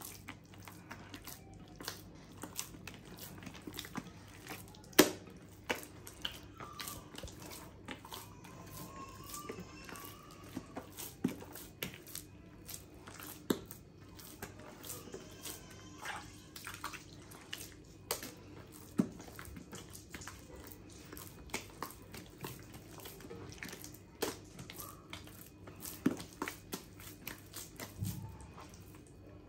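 Hands kneading a very soft, wet bread dough as water is worked in, with irregular sticky squelches, smacks and clicks; the sharpest smack comes about five seconds in.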